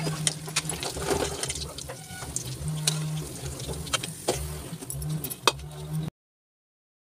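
Hot oil bubbling in a kadai during deep-frying, with a wire spider strainer clinking against the pan as the fried pieces are scooped out, over a low hum that comes and goes. The sound cuts off to silence about six seconds in.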